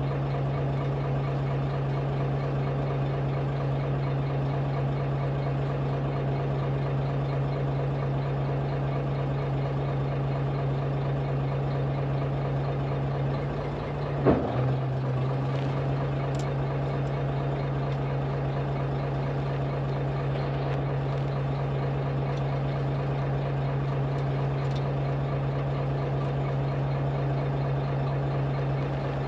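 Fishing boat's engine running at a steady idle with a constant low hum. About halfway through there is a single sharp knock, and the hum dips for a moment.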